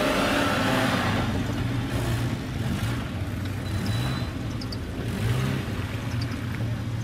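Suzuki 4x4 off-roader's engine working under load as it climbs a steep muddy bank. It is loudest in the first second, then eases to a quieter, steadier run with a brief rise about five seconds in.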